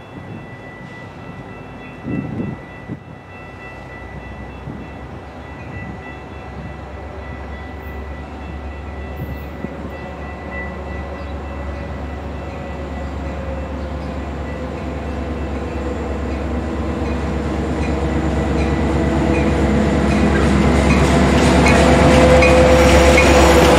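Metra diesel commuter train approaching and passing, its locomotive's engine rumble growing steadily louder as it nears, with wheels clicking over the rail joints as the locomotive reaches the platform near the end.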